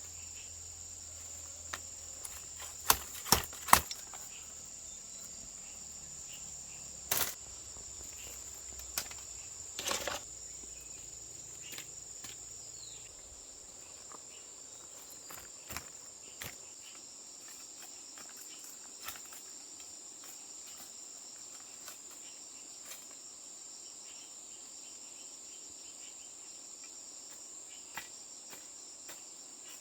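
Steady high-pitched insect chirring throughout. A handful of sharp knocks, like strikes on wood or bamboo, stand out in the first ten seconds, with only faint scattered clicks after that.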